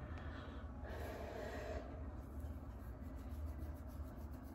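Fingernails scratching and picking at a flaky scalp through the hair, as faint quick scratchy strokes. A short breathy rush comes about a second in, over a low steady hum.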